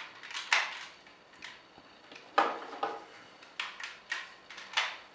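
Hard plastic toy parts clicking and clacking as Megazord pieces are detached and plugged into place: a string of about seven sharp irregular clicks, the loudest about halfway through.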